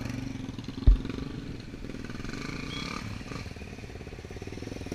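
Off-road trail motorcycle engine running steadily, with a brief low thump about a second in.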